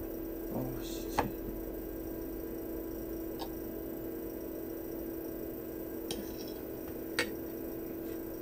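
A metal fork clicking against a small plate, two sharp taps about a second in and near the end, with a couple of fainter ticks between, over a steady low hum.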